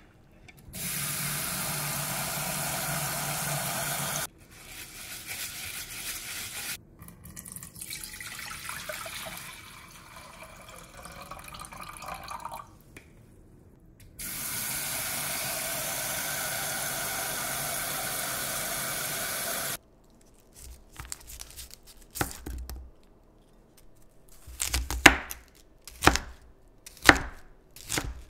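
Tap water running into a bowl of rice in a stainless steel sink, with uneven splashing in between as the rice is washed, then the tap running again. Near the end, a kitchen knife chopping napa cabbage on a cutting board, about one knock a second.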